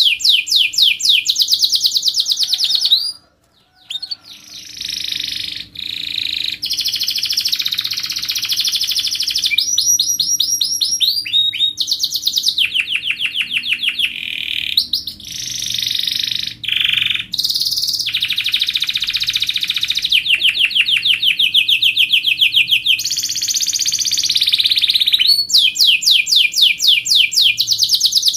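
Domestic canary singing a long song of tight rolling trills, fast runs of repeated high notes with chirps between, broken by a short pause about three seconds in.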